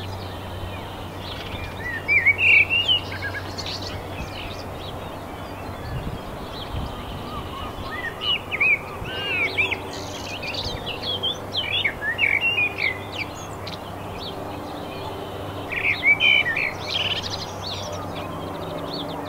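Songbirds singing quick, chirping phrases in three spells, near the start, in the middle and near the end, over a steady background hiss.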